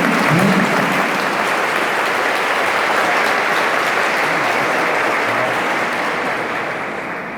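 Congregation applauding in a church hall, a dense steady clapping that fades out near the end.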